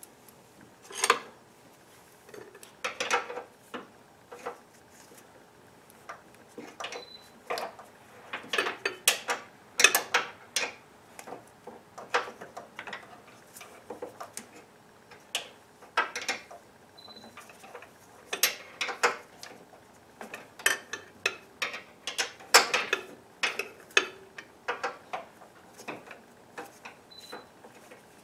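Irregular metallic clinks and clanks of hand tools knocking against metal engine parts, some single and some in quick runs of several clicks.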